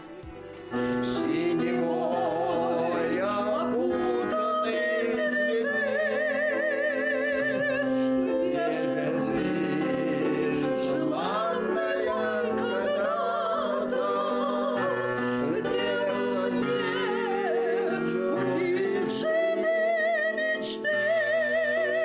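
A woman and an elderly man singing a song together, starting about a second in, her voice carrying a wide vibrato on the held notes.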